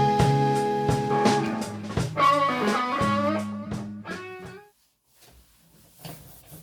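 Background music led by a plucked guitar, which rings out and fades to near silence about four and a half seconds in.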